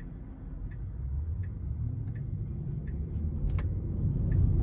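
Turn-signal indicator ticking about once every 0.7 seconds inside a Tesla Model 3's cabin, over a low road rumble that slowly grows louder.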